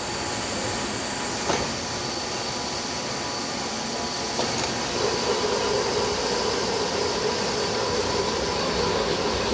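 Lathe running while a single-point V tool cuts a thread on a steel stud: a steady machine noise with a sharp click about a second and a half in, getting louder and rougher from about halfway through.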